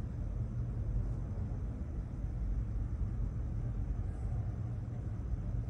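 A low, steady rumble with nothing above it, holding at an even level.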